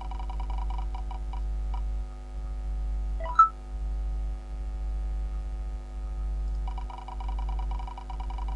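Spinner-wheel sound effect: fast ticking that slows to a few separate ticks, then a short rising chime as the wheel stops. Rapid ticking starts again about three-quarters of the way through as the wheel spins once more, all over a steady electrical hum.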